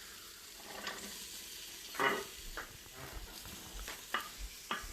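Chopped onion going into hot oil in an Instant Pot on sauté, sizzling faintly, with louder flare-ups about two and four seconds in. Several sharp, irregular clicks of a utensil against the pot.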